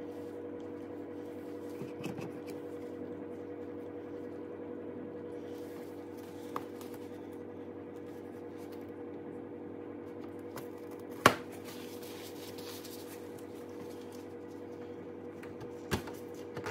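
Light clicks and taps of fuel injectors and their clips being handled by hand, with one sharp click about eleven seconds in and a softer one near the end, over a steady low hum.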